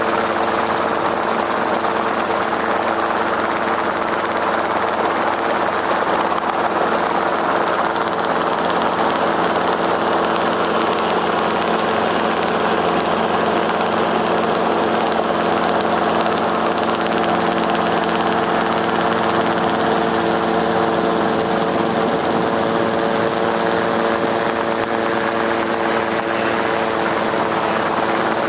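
Aircraft rotors running steadily: several steady tones over an even rushing noise, the tones drifting slightly in pitch in the second half.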